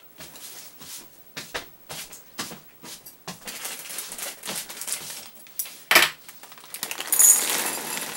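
Clicks, taps and knocks of kitchen items being handled, then a loud crinkling rustle about seven seconds in.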